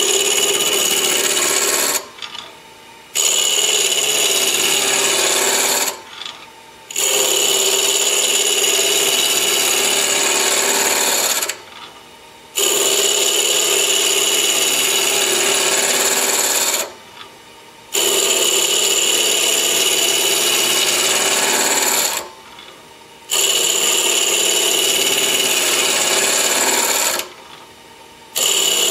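A 3/4-inch spindle gouge scraping a spinning wood blank on a Grizzly variable-speed bench-top mini-lathe, in six passes of about four seconds each with a much quieter break of about a second between them. This is the scraping technique, roughing the blank down to a cylinder; the blank is nearly round, so fewer edges hit the tool.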